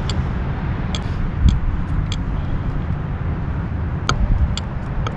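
Wind buffeting the microphone, a steady low rumble, with a few sharp clicks and knocks scattered through it.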